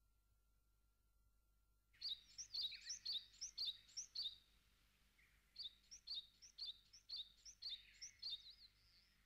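A small bird chirping: after a couple of seconds of near silence, two runs of quick, high, short chirps, a little over two a second, with a brief pause between them, then a sudden cut-off.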